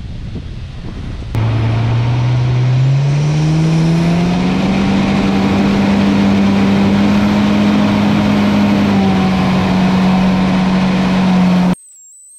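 Aluminium boat's motor speeding up, its note rising in pitch for a few seconds and then holding steady at speed, over the rush of water spraying off the hull. It starts with only wind and water noise, the engine note comes in abruptly about a second in, and everything cuts off suddenly near the end.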